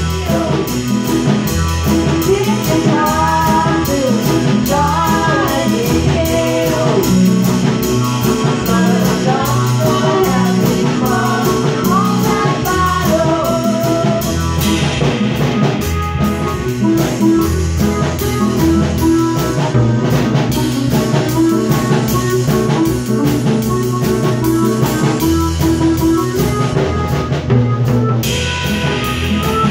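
A small band playing a song live: an acoustic drum kit keeping a steady beat under two electronic keyboards. A voice sings through about the first half, then the instruments carry on without vocals.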